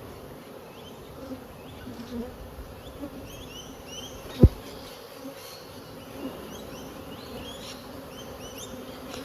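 Swarm of honey bees buzzing steadily around an open hive, with a single sharp knock about four and a half seconds in.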